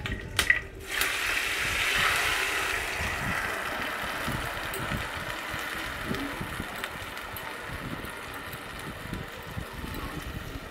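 Ground white mustard and green chilli paste hitting hot oil in a non-stick kadai and sizzling hard, after a couple of light knocks; the sizzle is loudest at first and slowly dies down.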